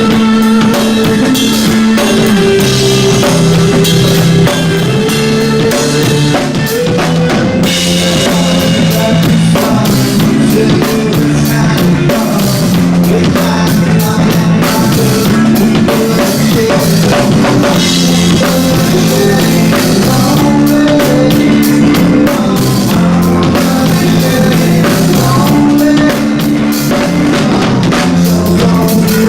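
Rock band playing live: a drum kit with kick and snare over a steady, repeating bass line and guitar, with no singing.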